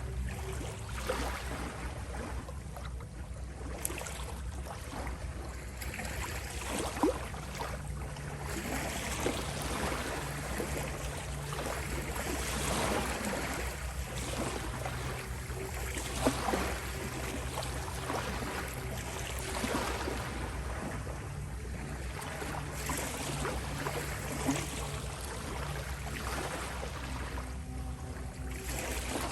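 Ocean waves washing in and drawing back in slow swells, with a few sharper splashes, over a steady synthesized drone.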